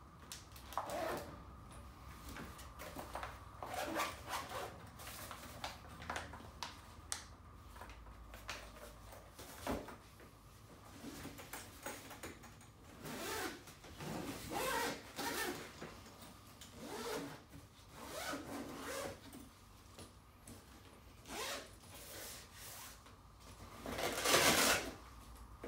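Zips on a wheeled fabric medical bag being run open and shut in irregular strokes, with nylon rustling and pouches and compartment flaps being handled; the loudest, longest stroke comes near the end.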